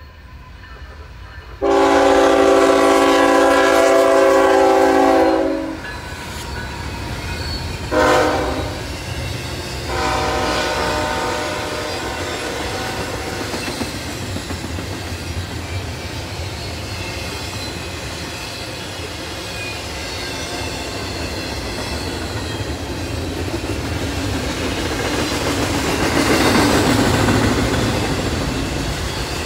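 Air horn of a CSX ET44AH locomotive leading an approaching intermodal freight train: a long blast about two seconds in, a short one about eight seconds in, then another longer, weaker blast. The train then rolls past close by: a steady rumble and clatter of double-stack well cars' wheels on the rails, swelling near the end.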